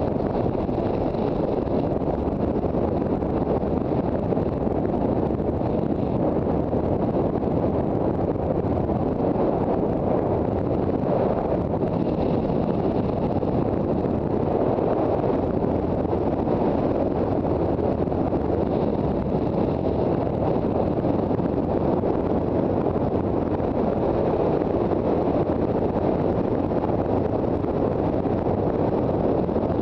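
Steady wind rush on the microphone of a Honda CB400 Super Bol d'Or motorcycle riding at an even speed, with its inline-four engine running underneath.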